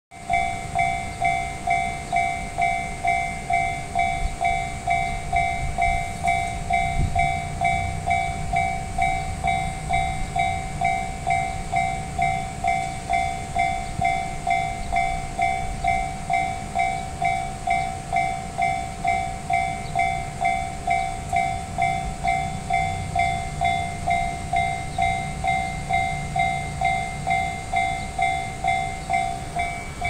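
Japanese railway level-crossing warning bell ringing steadily, an electronic two-tone ding repeating about twice a second, over a low rumble.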